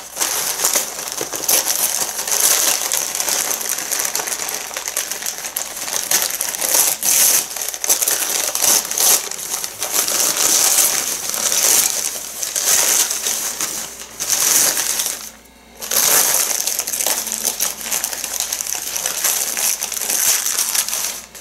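Crumpled newspaper packing rustling and crinkling as it is pulled and torn out of a cardboard box, with a brief lull about fifteen seconds in.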